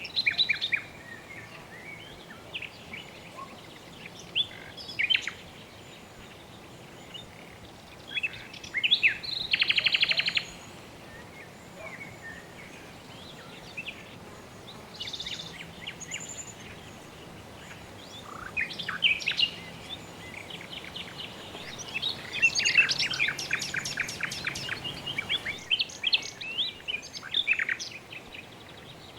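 Birds chirping and calling over a steady low background noise, with short scattered chirps, a rapid buzzy trill about nine seconds in, and a dense run of rapid chirps in the last third.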